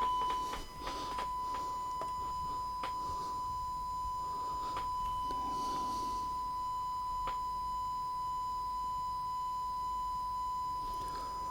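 Steady 1 kHz sine test tone, the calibration signal used to set the deck's recording level. A few faint clicks sound over it.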